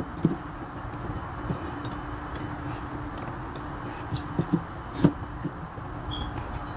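A few light clicks and taps from chopsticks picking jalapeño slices out of a jar and laying them on a pizza, over a steady low hum.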